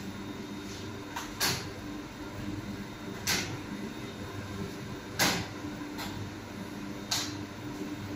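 Short scraping swishes about every two seconds as a metal scoop dips into a steel bowl of muffin batter and the batter is portioned by hand into paper muffin cups, over a steady low machine hum.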